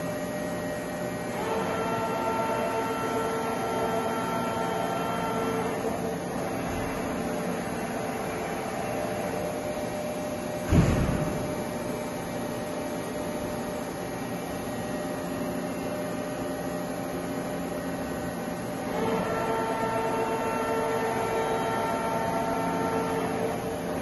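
Doosan VCF-850LRS II 5-axis machining center running with a steady hum, its drives whining twice for about four seconds each as the spindle head moves and tilts. There is one loud clunk a little before halfway.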